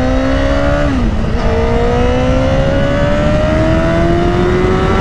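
Honda CBR1000RR's inline-four engine under acceleration, over a steady rush of wind noise. The revs climb, drop at an upshift about a second in, then climb steadily again. The engine is running clean now that a misfire caused by a loose Power Commander box has been fixed.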